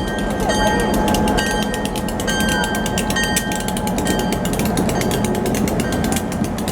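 Slow-moving freight railroad train rolling past, its wheels clattering and clicking rapidly on the rails over a low rumble, with thin steady squealing tones from the wheels.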